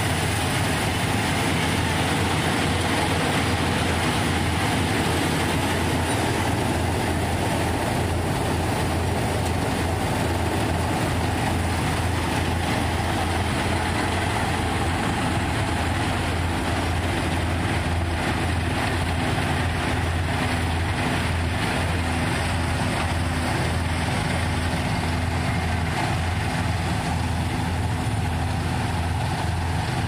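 KS 9300 combine harvester running steadily: its turbocharged Ashok Leyland diesel engine and machinery make a loud, constant drone with no change in pitch.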